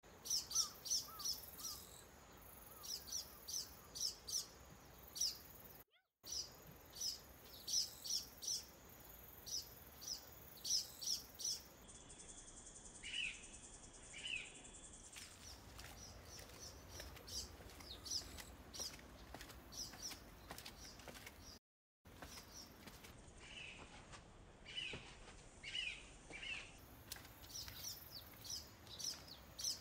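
Small birds chirping: quick runs of short, sharp, high notes repeated again and again, with a few lower, falling call notes in between.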